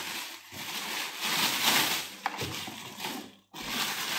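Thin clear plastic bag rustling and crinkling as hands pull it off a coffee machine, with a short break in the sound about three and a half seconds in.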